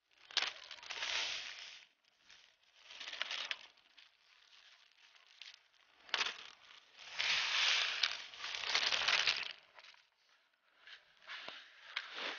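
Dry homemade groundbait of crushed corn, breadcrumbs and oat flakes being poured into a plastic bucket and stirred by hand: a gritty rustle in several bursts, the longest from about seven to nine and a half seconds in, with a few short clicks near the end.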